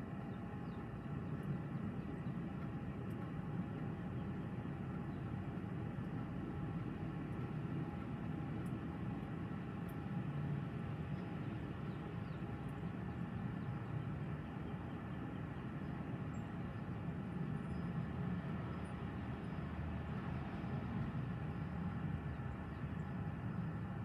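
Strong gusty wind, a low rumble that swells and eases every few seconds, over a steady faint hum of several tones.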